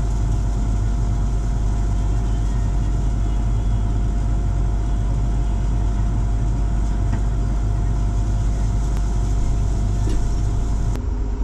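Diesel engine of a large farm machine running steadily, a heavy low drone with a steady whine over it. Near the end the sound turns abruptly duller.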